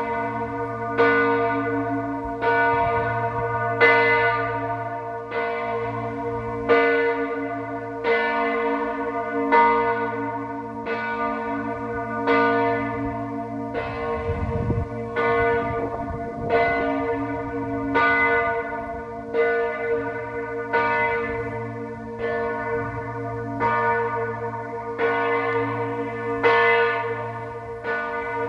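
The largest bell of a parish church, over 3,000 kg and tuned to B-flat (b°), swinging and ringing alone with one stroke about every second. Each stroke hums on into the next. This is the festive pre-ringing (Festtagsvorläuten) that announces a feast day.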